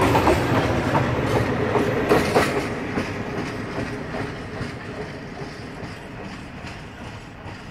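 The wheels of a freight train's flat wagons clack over the rail joints as the end of the train rolls past. The clacks thin out and the rumble fades steadily as the train moves away.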